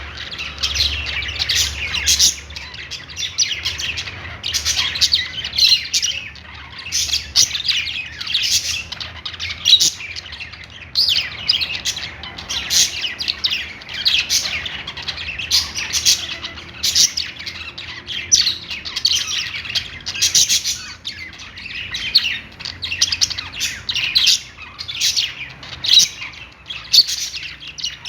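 Budgerigars chirping and warbling, a steady stream of short high chirps with occasional squawks, typical contented budgie chatter.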